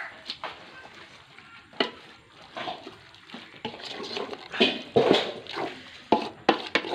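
A spoon stirring chicken in a thick, wet masala in a cooking pot, with scraping and several sharp clinks of the spoon against the pot.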